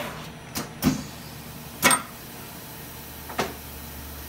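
Four sharp metallic clicks and knocks from working the drill in and out of a milling machine's spindle during a tool change, over a low steady machine hum that starts about halfway through.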